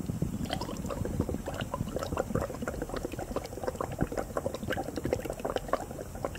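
Breath blown through a drinking straw into a test tube of water, bubbling steadily as a rapid stream of small popping bubbles.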